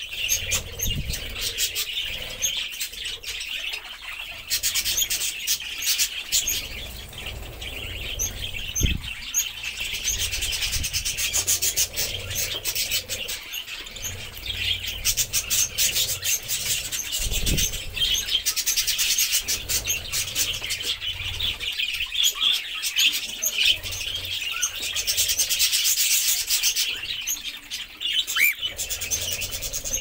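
A flock of budgerigars chattering continuously, a dense mass of rapid, overlapping high chirps and warbles.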